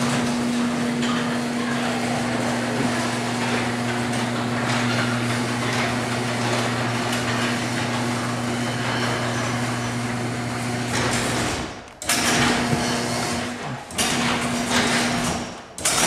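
Electric garage door opener running as a sectional garage door rolls down its tracks: a steady motor hum over rattling rumble. It stops about twelve seconds in as the door closes. A few shorter bursts of noise follow.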